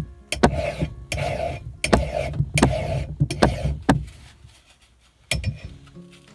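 Hand file scraping along an axe blade in about six rhythmic sharpening strokes, each starting with a sharp click. The strokes stop about four seconds in, followed by a couple of lone clicks.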